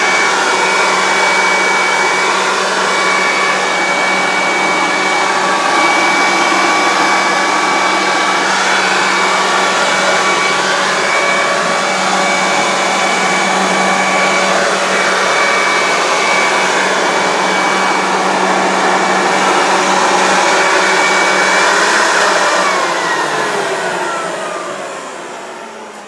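Corded electric leaf blower running steadily with a motor whine over a rush of air. About 22 seconds in it is switched off and winds down, its pitch falling as it fades.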